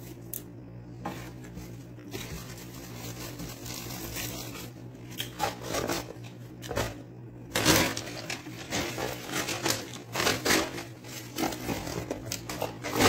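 Paper fast-food bag and takeaway boxes being handled: rustling and crinkling of paper, starting about halfway through and growing busier, over a steady low hum.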